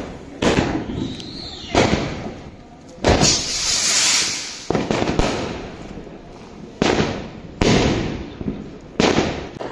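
Diwali fireworks going off overhead: about eight sharp bangs of bursting aerial shells, each with an echoing fade. A rocket's hissing whoosh lasts over a second a few seconds in.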